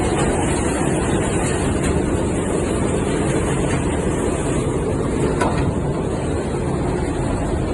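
Petkus K-527 grain and seed cleaning machine running steadily after a major overhaul, a dense, even mechanical rumble and clatter, with one brief click about five and a half seconds in.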